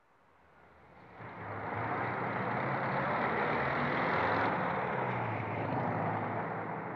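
City street traffic fading in over about two seconds: passing cars and a bus, their engines running under a steady wash of tyre noise.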